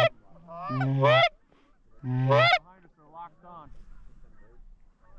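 Canada goose call blown loud and close: three two-note honks in the first two and a half seconds, each a low note breaking upward into a higher one, followed by fainter, more distant goose honking.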